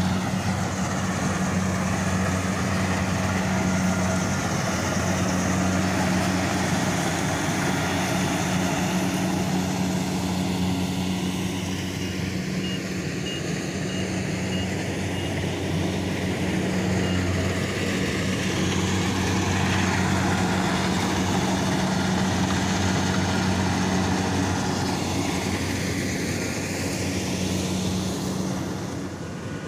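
Kubota combine harvester's diesel engine running steadily as it cuts ripe rice, a constant low drone. A short run of evenly spaced high beeps sounds for a few seconds around the middle.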